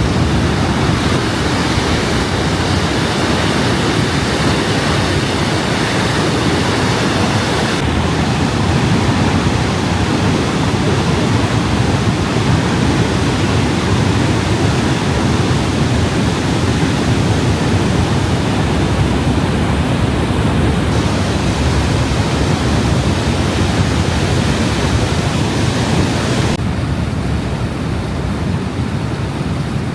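Niagara Falls' falling water, a loud, steady rush of white noise with no break. Its hiss dulls somewhat near the end.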